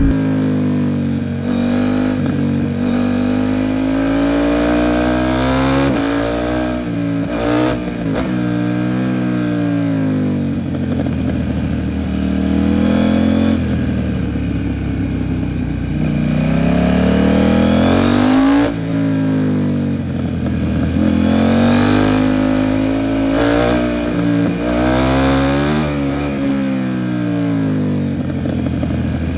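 KTM 790 Duke parallel-twin engine with an Arrow Pro Race titanium exhaust, heard from onboard while riding. The engine note repeatedly rises in pitch under acceleration, then drops back sharply several times as the rider shifts or rolls off the throttle.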